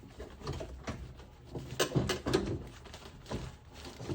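Irregular clicks and knocks of a car door lock actuator and its rods being worked out through the inside of the door shell, plastic bumping against sheet metal, with a few louder knocks about two seconds in.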